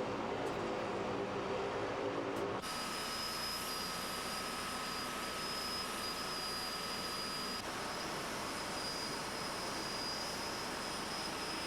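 Steady machine hum with several low tones that cuts off about two and a half seconds in. It gives way to the steady hiss of a Boeing 767 flight deck on the ground, with thin high whines over it.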